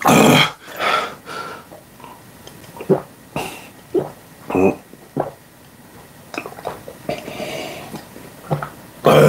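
A man's loud blowing exhale, then short grunts and throat noises as he reacts to the pungent taste of Chinese stinky tofu, followed by quieter gulps as he drinks from a glass mug.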